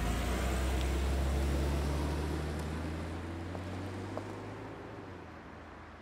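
A car pulling away, its low engine hum and road noise fading steadily over a few seconds.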